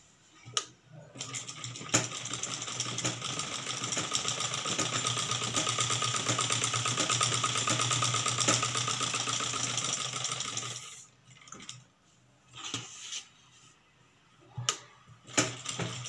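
Black domestic sewing machine stitching a neck facing onto blouse fabric: a rapid, steady run of needle strokes for about ten seconds that stops short. A few light clicks follow as the fabric is handled.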